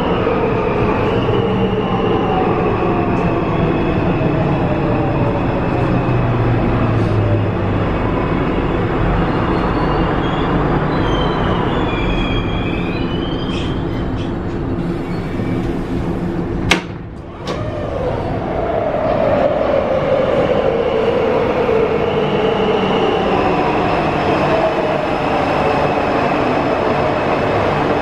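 Alstom Metropolis metro train running under a steady rumble, its traction motor whine falling in pitch over the first several seconds as it brakes into a station. About halfway there is a sharp click and a brief drop in the noise, then another whine falls slowly in pitch.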